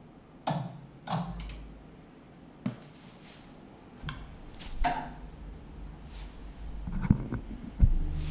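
Tajima SAI embroidery machine starting up: a series of clicks and clunks as the frame moves to its origin and the heads activate. A low hum comes in about four seconds in, and after a clunk near the end the machine settles into a steady hum. A faint high-pitched whine runs throughout, which the owner hears through the whole startup and links to the power supply swap.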